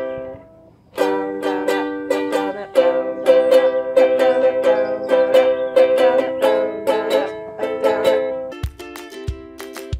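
Ukulele strummed in chords by a beginner, with a short break just after the start. Near the end it gives way to a background music track with a steady thumping beat.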